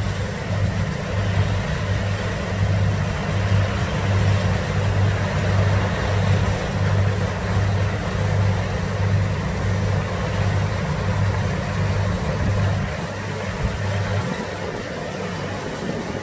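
Kubota DC-60 combine harvester's diesel engine running steadily under load while it harvests rice, with a low throb that pulses about twice a second under a broad mechanical hiss. The low throb drops away about fourteen seconds in.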